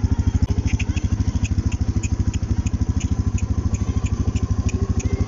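A small engine running steadily with a fast, even pulse. Over it come light clicks, about three a second, of a young goat's hooves trotting on asphalt.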